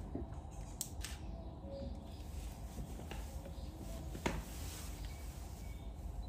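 Sumatran tiger gnawing and crunching on a meaty bone: a few sharp cracks of teeth on bone, the loudest about four seconds in, over a steady low background rumble.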